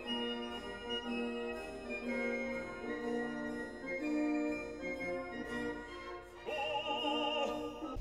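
Classical-style background music: sustained organ-like chords changing step by step, joined about three-quarters of the way through by an operatic singing voice with a wide vibrato.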